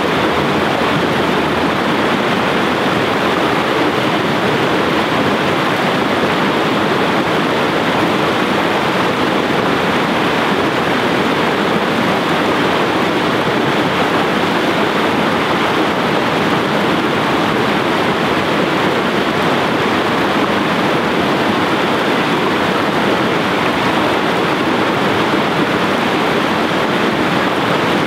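Mountain river pouring over a small rocky cascade: a loud, steady rush of white water.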